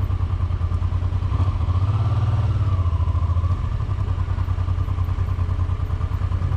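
Honda Transalp 700's V-twin engine running at low road speed with a steady pulsing beat. About a second and a half in it picks up briefly, then eases back off about three seconds in.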